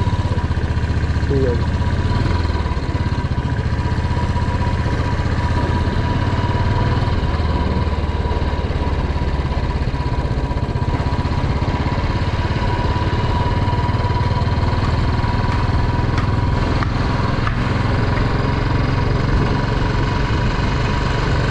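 Royal Enfield Classic 350's single-cylinder engine running steadily under way as the bike picks up speed, a low pulsing thump.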